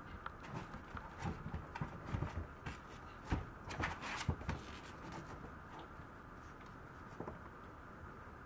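A Maltese puppy scratching and scuffing about on the pen floor and nosing at a round plastic tray: irregular light scrapes and clicks, with a few sharper knocks about three to four seconds in. The sounds die away after about five seconds as the puppy settles.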